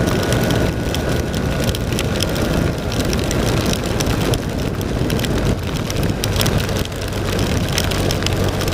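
Heavy rain hitting the microphone and motorcycle in a dense patter of sharp drop impacts over wind rush, with the BMW R1200 RT-P's boxer-twin engine running steadily underneath.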